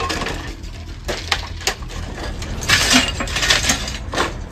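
Clattering of scrap and debris being shifted and stepped on in a rubble pile: a few sharp knocks about a second in, then rattling, scraping bursts near the end.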